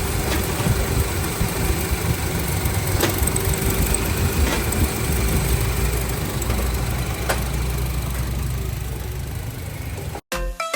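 Honda Civic engine idling steadily, with a few faint ticks. It stops abruptly near the end and music with a beat begins.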